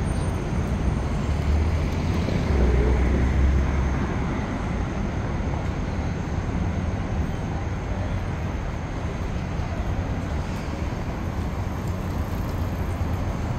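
City street traffic noise: a steady hum from passing cars, with a deeper low rumble that swells for about two seconds, starting about two seconds in.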